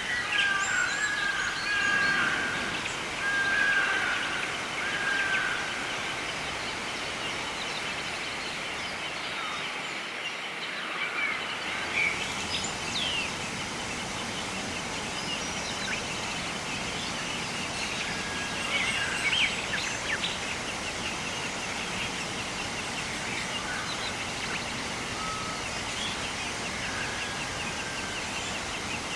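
Outdoor nature ambience: scattered bird calls, short whistles and chirps, busiest in the first few seconds, over a steady hiss and a fast high trill.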